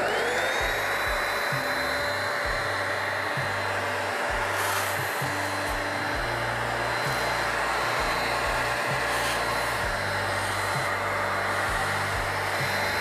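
Small vacuum cleaner switching on, its motor whine rising quickly to pitch and then running steadily as it sucks loose coffee grounds out of the coffee grinder's burr area.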